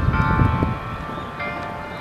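Church tower bells ringing: a new bell stroke lands near the start and another about a second and a half in, each at a different pitch, with the earlier tones still humming underneath. A low rumble sits under the first half second.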